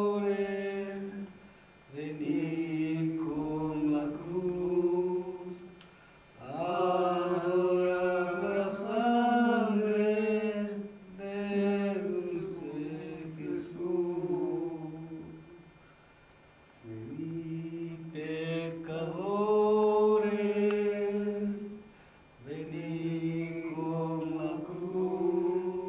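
Slow sung chanting by voices in long, held phrases of about four to five seconds, with short pauses for breath between them.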